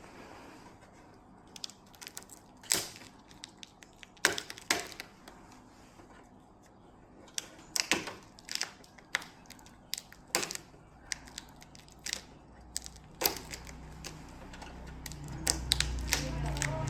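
Irregular sharp clicks and knocks of objects being handled, a dozen or so spaced unevenly, with a low rumble rising near the end.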